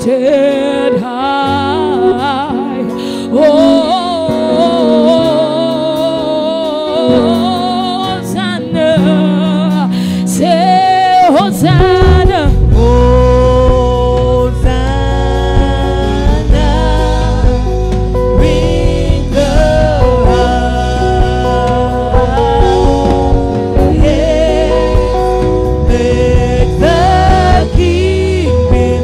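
Gospel worship song: a lead voice sings a slow, wavering melody over instruments, and a full band with heavy bass comes in about twelve seconds in.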